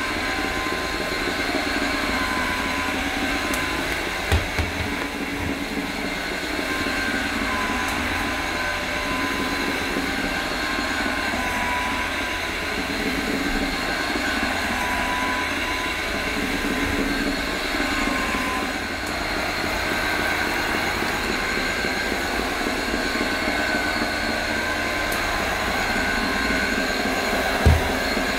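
AirCraft PowerGlide cordless hard floor cleaner running, its twin rotating scrubbing pads spinning on an Amtico floor with a steady motor whir and swish. A low thump about four seconds in and another near the end.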